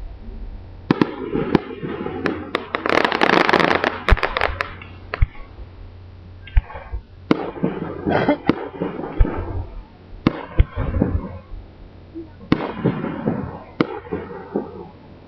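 Fireworks display: aerial shells bursting with sharp bangs every second or so, each trailing off in an echo, with a dense burst of crackling about three to four and a half seconds in.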